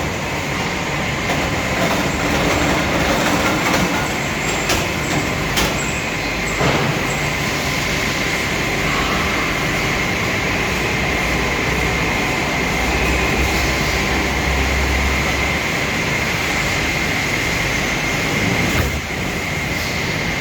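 Steady mechanical running noise with a constant high whine, broken by a few sharp clicks or knocks, a handful of times.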